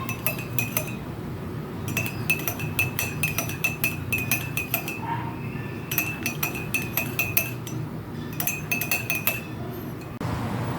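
A metal spoon stirring honey into hot tea in a cup, clinking against the sides in quick runs with short pauses between. Each clink rings briefly at the same pitch.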